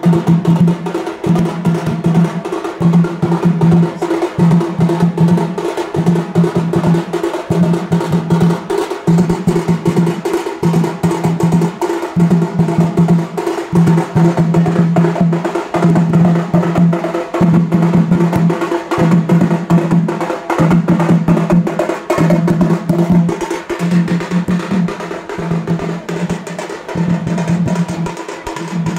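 A street drum band playing: drums beaten with sticks in a fast, loud, unbroken rhythm, with a deep drum tone pulsing about once a second.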